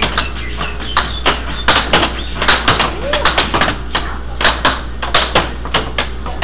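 Air hockey puck and mallets clacking in a fast rally: quick, irregular sharp hits, several a second, of the plastic puck against the mallets and the table's rails. A steady low hum and some background voices lie underneath.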